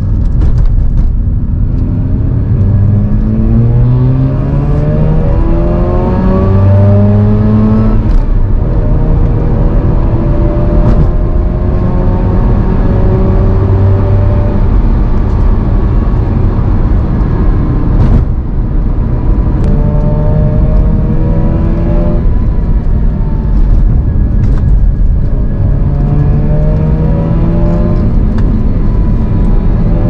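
Mazda RX-8's two-rotor rotary engine pulling hard through the revs, heard from inside the cabin. Its pitch climbs and then drops back several times as it shifts up, with a couple of sharp clicks along the way.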